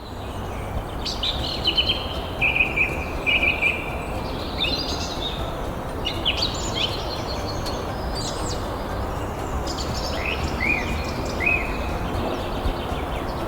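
Wild birds chirping and calling in short notes and quick falling whistles, several overlapping, over a steady background hiss and low rumble of outdoor noise.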